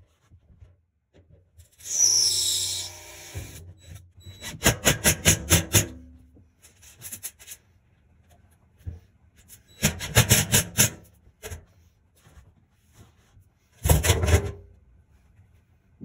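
Hand work scraping and rasping in four short bursts of quick rubbing strokes, separated by pauses.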